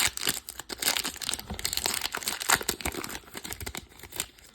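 Foil wrapper of a Pokémon TCG booster pack crinkling and tearing as the pack is opened by hand, in a dense run of irregular crackles that thins out near the end.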